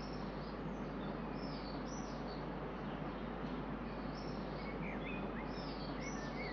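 Small birds chirping in short, scattered calls over steady background noise, the calls coming more often toward the end.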